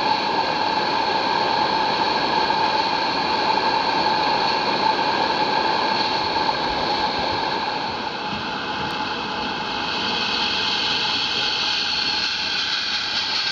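Small live-steam garden-railway locomotive standing in steam, hissing steadily with a few steady whistling tones in the hiss; the hiss grows a little sharper about two-thirds of the way in as steam starts to show around the cylinders.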